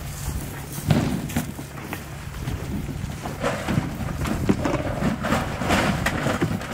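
Bags of plastic full-body decoys being carried up a metal trailer ramp and loaded into an enclosed trailer. A few sharp knocks come in the first two seconds, then rustling and clattering as the bags are shoved inside, with wind on the microphone throughout.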